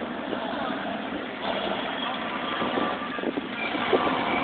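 A vehicle engine running steadily and getting somewhat louder toward the end.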